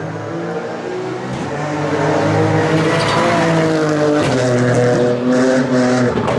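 Rally car engine pulling hard at full throttle, its pitch climbing as it revs, dropping with an upshift about four seconds in, then climbing again.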